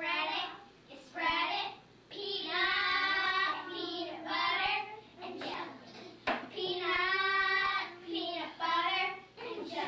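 Young children singing a song together, with long held notes about three and seven seconds in.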